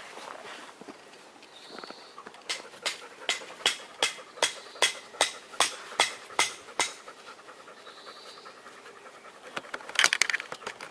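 Dog panting in quick, regular breaths, about three a second, for several seconds in the middle, with a burst of louder noises near the end.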